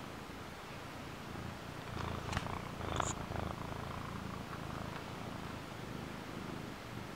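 Domestic cat purring close to the microphone, the purr growing stronger about two seconds in. A few sharp rustles come around two and three seconds in as the cat moves against the camera.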